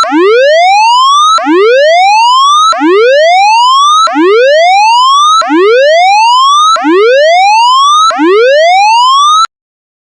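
Tsunami warning siren sounding the all-clear signal: a loud tone that rises in pitch over about a second and a third, drops back and repeats about seven times, then cuts off suddenly near the end.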